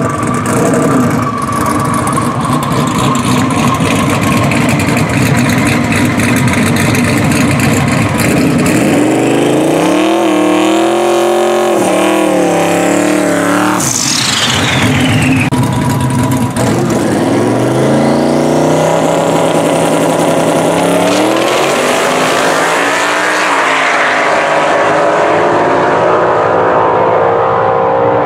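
Twin-turbocharged 4.6-litre two-valve V8 of a 2002 Mustang with twin PTE 6466 turbos, running loudly. Partway through it revs up and down through a burnout, and later it climbs steadily in pitch as the car accelerates away.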